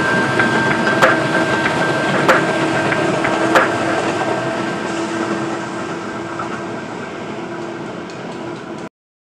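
Electric commuter train running along an elevated track: a steady rumble and hum with sharp wheel clacks over the rail joints about every second and a quarter. It fades slowly as the train moves away, then cuts off suddenly near the end.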